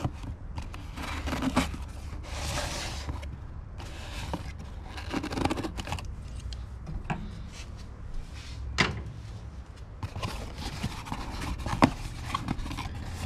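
Scissors cutting through packing tape on a cardboard parcel, with cardboard rubbing and scraping as the box is handled. Two sharp knocks come in the second half, the louder one near the end.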